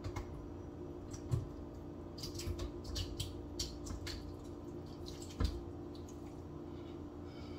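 Soggy, water-soaked Doritos sliding out of a tilted pot into a cloth strainer, with wet drips, squishes and a quick run of small splats in the middle. Two dull knocks come a little over a second in and again about five and a half seconds in.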